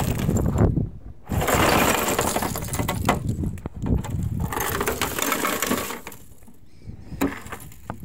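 Ice cubes from a refrigerator ice-maker bin being dumped out of a plastic bin, clattering against the plastic and each other as they spill onto the ground. They come in two pours with a short pause about a second in, then thin out to scattered clinks about six seconds in.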